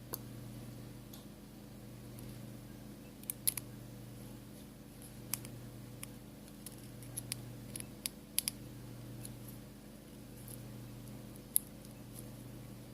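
Irregular light clicks and taps of small repair tools and parts being handled during work on a smartphone's home button and display assembly, about a dozen sharp ticks, some in quick pairs, over a steady low hum.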